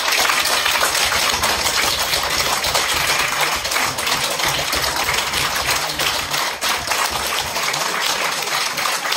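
Audience applauding: dense, steady clapping from a small seated crowd.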